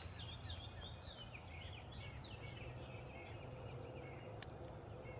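Faint birdsong: quick, repeated up-and-down chirping notes, with a higher-pitched phrase about three seconds in, over a low steady rumble.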